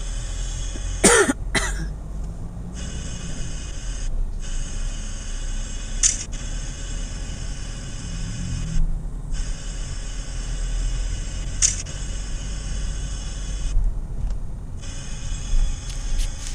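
Steady low rumble of a moving vehicle heard from inside the cabin, with a few brief sharp noises standing out every few seconds, the loudest about a second in.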